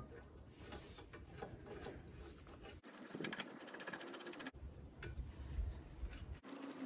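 Faint metallic clicking and handling noises from the second caliper bracket bolt being threaded in and tightened, with a run of quick, even clicks about three seconds in.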